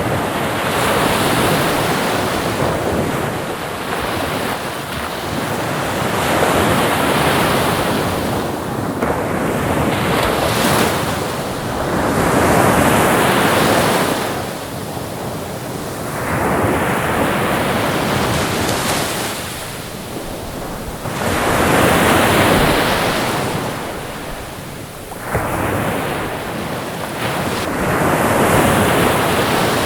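Ocean waves breaking: a hiss of surf that swells and fades about every five seconds.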